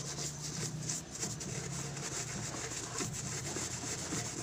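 Scouring pad scrubbing the grimy bottom of a frying pan, a steady back-and-forth rasping rub as dirt loosened by a foaming bubble cleaner comes off.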